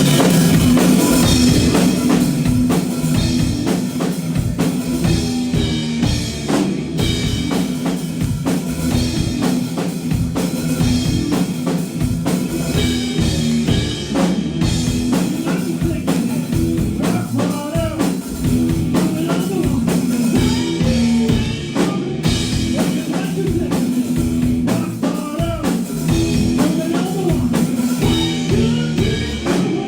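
Rock band playing live: a drum kit driving a steady beat under loud guitars, with sustained low notes.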